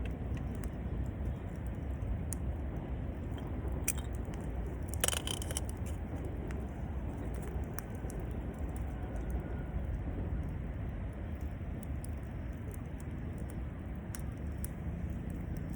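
Wood campfire crackling, with scattered sharp pops and one louder snap about five seconds in, over a steady low rumble.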